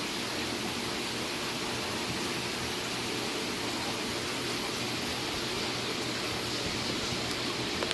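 Steady rushing hiss of saltwater aquarium water circulation and filtration, with a faint low hum underneath.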